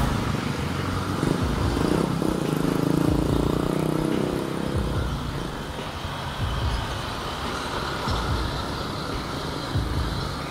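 Road traffic heard from a bicycle riding in it: motor vehicle engines running close by. One engine is louder and nearer for the first few seconds.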